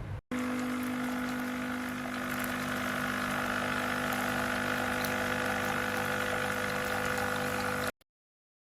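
Nescafé Dolce Gusto Genio S capsule coffee machine brewing: its pump runs with a steady buzzing hum and a hiss of coffee being pushed through the capsule, then cuts off abruptly shortly before the end.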